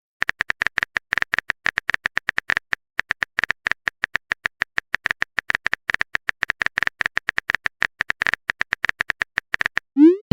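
Phone-keyboard typing sound effect: a long run of quick, uneven clicks. Near the end comes a short rising swoosh, a message-sent sound.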